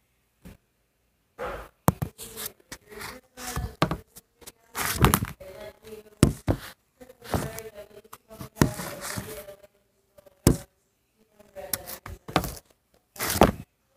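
Irregular rustling, scraping and knocks from a large sheet of paper poster board being handled and the phone being moved over it, with several sharper thuds and scratchy swishes.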